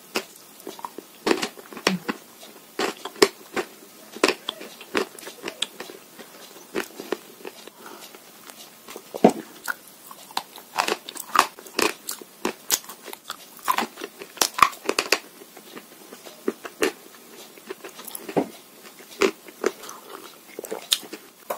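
Edible chalk and Uzbek clay being bitten and chewed: irregular sharp crunches, one or two a second, with softer crackling between them.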